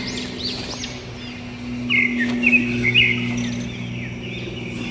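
Songbirds chirping, with many quick arching chirps repeating and a few louder short chirps about two to three seconds in, over a steady low hum.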